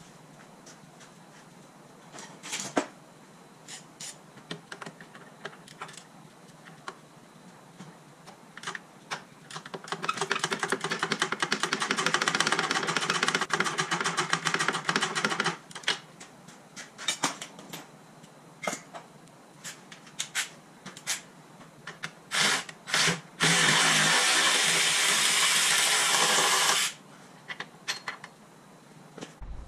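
A hand-held power tool running on the car's front suspension in two runs: about five seconds starting some ten seconds in, then about three seconds near the end. Short metallic clicks and knocks of tools and parts come in between.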